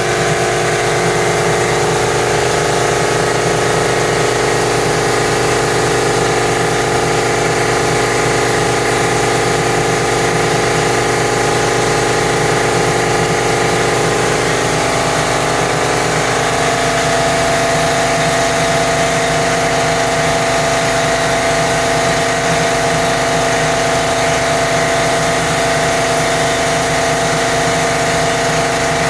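Motor of the paint-spraying equipment running steadily with a loud, even hum; its pitch shifts a little about halfway through.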